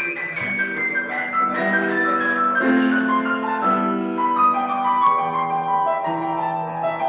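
Piano playing a slow passage: a melody stepping downward over held low chords.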